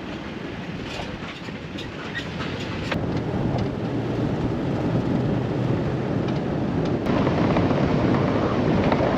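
Truck driving on a rough dirt road, heard from inside the cab: a steady rumble of tyres and engine with light rattling, growing louder about three seconds in.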